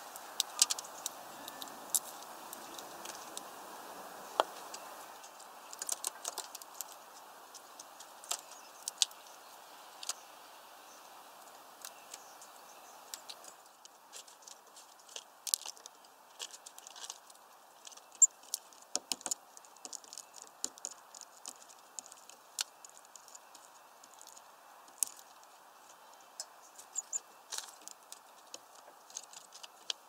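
Irregular sharp taps and clicks, some in quick runs, from a great tit pecking and hopping on a wooden-branch bird feeder, over a faint steady hiss.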